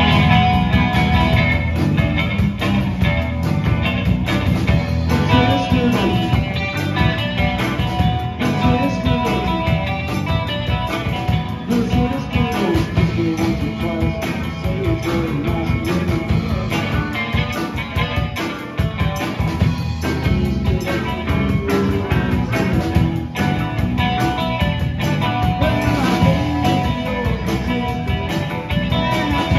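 Live rock-and-roll band playing through a PA: electric guitars over a drum kit, with a steady beat.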